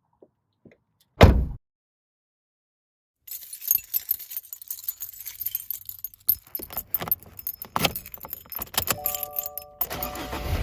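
Inside a car: a door shuts with one heavy thump, then a bunch of keys jangles and clinks for about six seconds. Near the end a few steady tones sound, and a low steady rumble begins.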